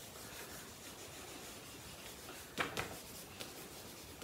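Wax crayon scribbling back and forth on paper on a flip-chart board while colouring in, a soft steady scratchy rubbing, with two sharper taps of the crayon about two and a half seconds in.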